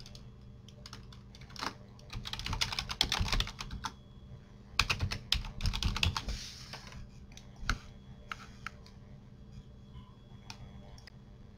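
Typing on a computer keyboard: two quick runs of keystrokes, then a few scattered single clicks.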